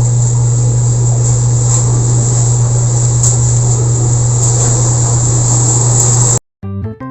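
A steady low hum under a continuous hiss, which cuts off abruptly about six and a half seconds in. A few music notes begin just after.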